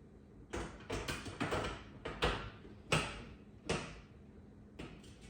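Irregular hard knocks and clunks, about eight in five seconds, the loudest about three seconds in. They come from the glass cooktop and the range's metal panels being handled and set in place.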